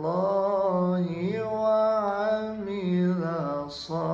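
A man's voice reciting the Quran in melodic tajwid style, holding long drawn-out notes that bend in pitch, with a short breath near the end.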